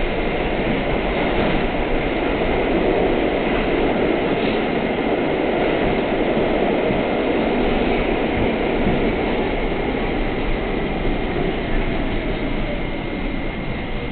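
R32 subway car running through a station and tunnel, heard from inside the front car: a steady rumble of wheels on track, with a faint whine that falls in pitch near the end.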